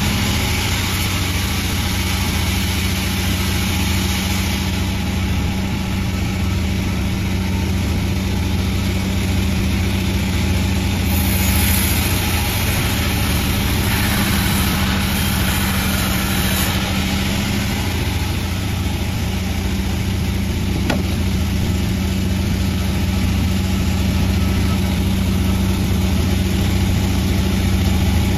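Panda36 sawmill running with a steady machine hum, and a brighter hiss for several seconds about midway.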